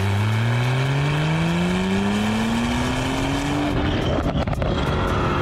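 Porsche 991.2 Carrera 4S twin-turbo 3.0-litre flat-six, breathing through a Fi valvetronic exhaust with catless downpipes, accelerating: the exhaust note climbs steadily in pitch. About four seconds in it turns rough and uneven.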